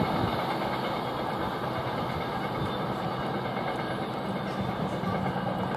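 Freight train of hopper wagons rolling away along the track: a steady noise of wagon wheels on the rails.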